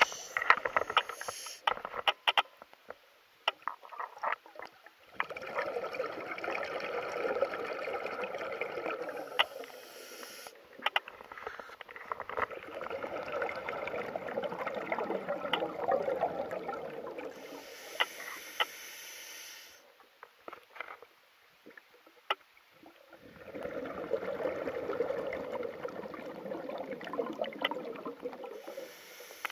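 Scuba diver breathing through a full face mask's regulator underwater: three long bubbling rushes of exhaled air, with quieter gaps between them holding scattered sharp clicks.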